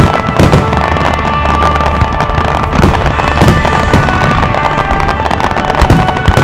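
Fireworks shells bursting in rapid succession, a dense run of bangs and crackles, with music playing steadily underneath.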